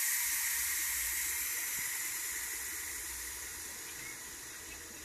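Steam hissing from the vent valve on a Ninja Foodi Deluxe pressure lid, fading steadily as the last of the pressure escapes: the cooker is nearly done venting.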